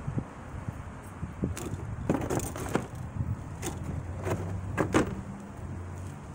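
Plastic wrapping and cardboard packaging being handled as an electric griddle is unpacked: a run of sharp crinkles and crackles, loudest about two and five seconds in, over a steady low hum.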